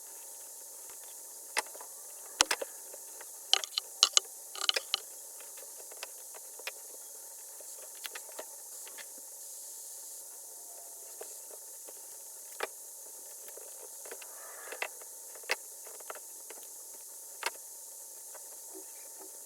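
Scattered sharp clicks and taps over a steady hiss, bunched together a few seconds in and then spaced out.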